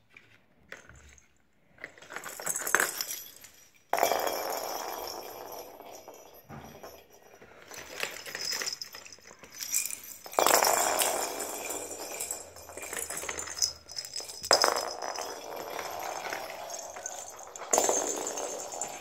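Cat toys and plastic balls clattering and rolling across a wooden floor, in four sudden rushes about 4, 10, 14 and 18 seconds in, each rattling on and dying away over a few seconds.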